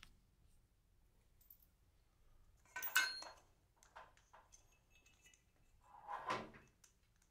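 Loose metal hardware clinking and rattling: a sharp, ringing clink about three seconds in, then a longer, softer rattle about six seconds in.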